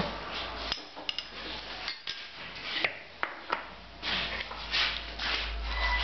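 Metal ladle scraping and knocking against a wok and clinking on porcelain bowls while wontons in broth are scooped out, a run of irregular sharp clicks and scrapes.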